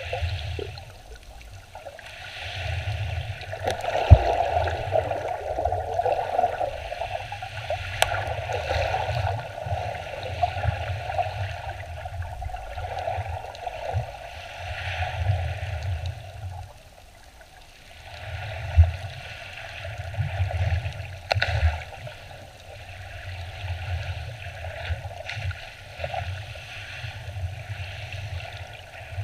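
Sea water surging and churning, heard from underwater as a low, muffled rumble that swells and fades with the wave motion. A few sharp knocks come through, the loudest about four seconds in.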